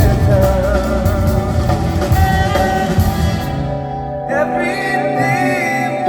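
Live band and singer performing a slow song. Drums and cymbals play under held chords and the sung melody, then the drums drop out about four seconds in, leaving sustained chords and the voice.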